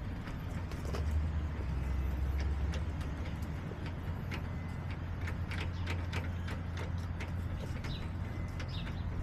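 Backyard chicken-run ambience: a low steady rumble, stronger between about one and three seconds in, with a run of short sharp clicks and faint chicken sounds in the second half.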